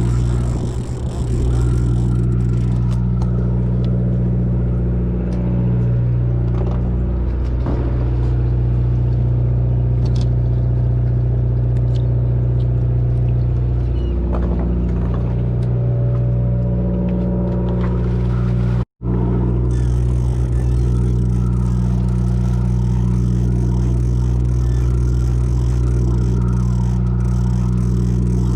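A fishing boat's engine running steadily under way, a continuous low drone. It cuts out for an instant about two-thirds of the way through.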